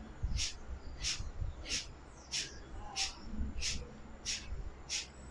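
Kapalabhati breathing: sharp, forceful exhalations through the nose, evenly paced at about three every two seconds, each a short hiss driven by a pump of the belly.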